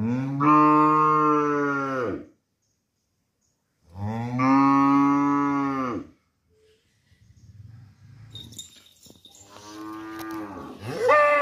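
A cow mooing: two long, low moos of about two seconds each, a few seconds apart. After a pause come a fainter call and then a louder, higher-pitched one near the end.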